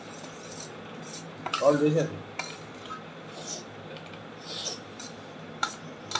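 Metal spoon clinking and scraping against a stainless steel plate as rice is scooped up, with several sharp clicks spread through.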